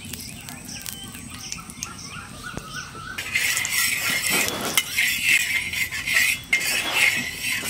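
Flat metal spatula scraping across an iron tawa in repeated strokes, spreading hot ghee over the pan; the scraping starts about three seconds in.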